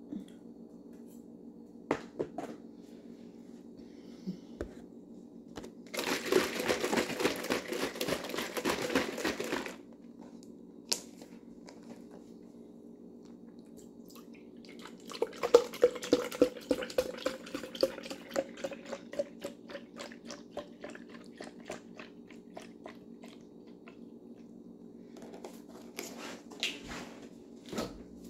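Liquid poured into a cup or bottle, a tone that slowly rises in pitch as it fills, with a patter of small splashy ticks. Earlier comes about four seconds of dense crinkling or rustling, and a few single clicks.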